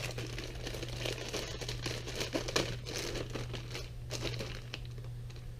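Irregular crinkling and crackling as something is handled by hand, over a steady low hum.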